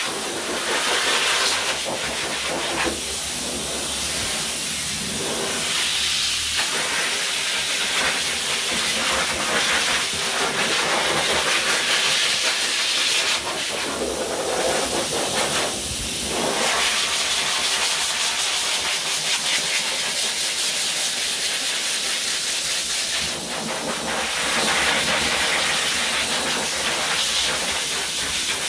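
Dog grooming blow dryer running, a steady rush of air that brightens and dips in tone several times.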